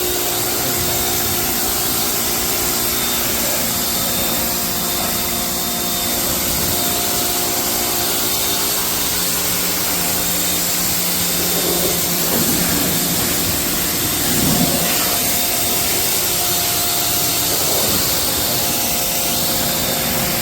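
High-pressure washer running steadily: a motor-pump hum under the dense hiss of the water jet spraying.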